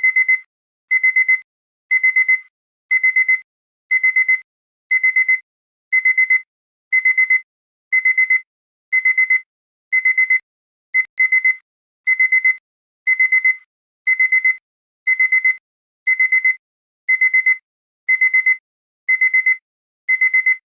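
Countdown timer's alarm beeping: quick bursts of four high-pitched electronic beeps, repeating about once a second, in the pattern of a digital alarm clock, sounding the end of the countdown.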